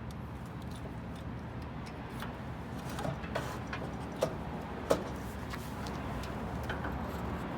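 Scattered light clicks and knocks of parts being handled during a snowblower differential gear swap, over a steady low background rumble. The two loudest knocks come a little past the middle.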